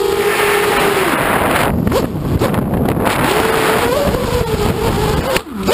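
Multirotor drone's electric motors and propellers whining, heard through its onboard camera with wind noise on the microphone. The steady whine drops in pitch about a second in, then wavers up and down as the drone comes down close to the ground, with a sharp dip and swing in pitch near the end.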